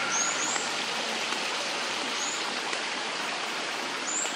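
Steady rush of flowing water from a garden stream, with a bird giving a few short, high chirps over it.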